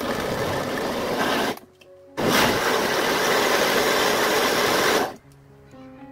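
Countertop blender running in two pulses, about a second and a half, a short pause, then about three seconds, as it blends steamed onions with their cooking liquid and water into a purée. Music comes in near the end.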